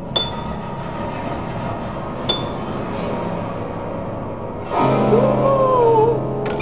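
Piano strings sounded with workshop tools: two sharp metallic strikes that ring on, then a louder sustained tone whose pitch wavers and slides downward over a steady low drone.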